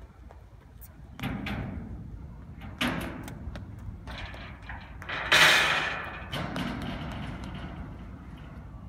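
Footsteps pounding on and up metal skate-park ramps: a series of hollow thuds with a rattling decay, the loudest about five seconds in.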